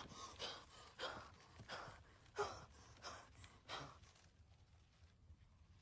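A woman gasping for breath: about seven short, ragged gasps, one with a little voice in it, fading away after about four seconds.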